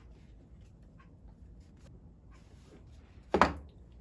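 Faint rubbing and rustling as a cloth wipes down a pair of steel duck bill pliers, with one sharp knock a little over three seconds in.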